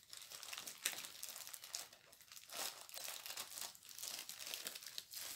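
Plastic packaging being handled, crinkling and rustling in a run of irregular crackles.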